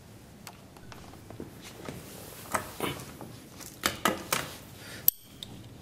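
Faint scattered clicks and knocks of small metal parts being handled at a workbench, with a sharper click about five seconds in.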